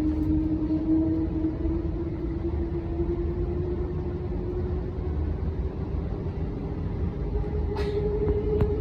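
Saphir Odoriko E261-series electric train pulling away, its motors whining in a slowly rising pitch over a steady low rumble. Two short clicks near the end.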